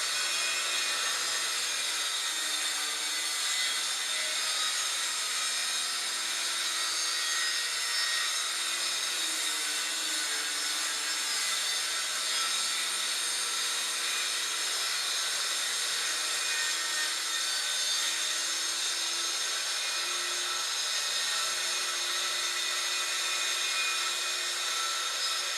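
Handheld circular saw running steadily through a long straight rip cut in an MDF sheet, guided along a rail. The sound holds even for the whole cut and starts to wind down at the very end.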